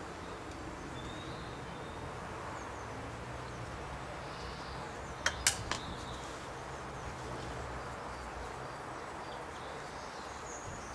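Three quick sharp clicks of a hand tool working on a motorcycle engine, about halfway through, over steady outdoor background noise with faint bird chirps.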